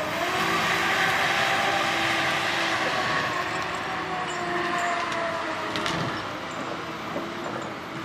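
Heavy logging machinery at work: a diesel engine running steadily with a droning, whining hum, and a single sharp knock about six seconds in.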